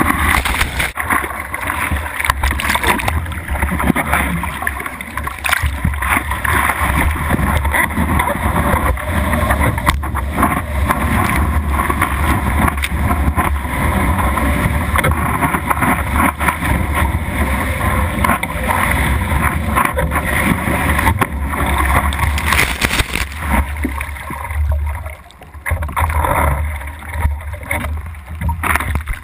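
Seawater rushing and splashing around a surfboard-mounted camera as the board rides through whitewater and is paddled, with wind rumbling on the microphone. The noise drops away briefly twice near the end.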